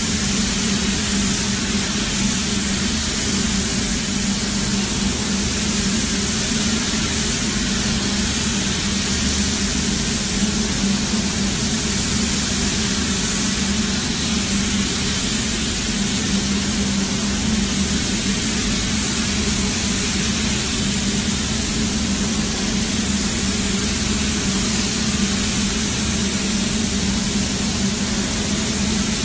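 Gravity-feed paint spray gun hissing steadily as compressed air atomises pink paint onto a car body, with a steady low hum underneath.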